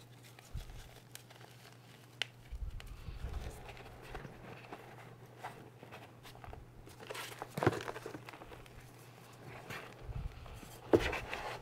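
Hand working through a tub of crumbled gym chalk powder and lumps: soft crumbly rustling and crunching, with a few sharp knocks as chalk chunks are pressed and set down. The loudest knock comes near the end.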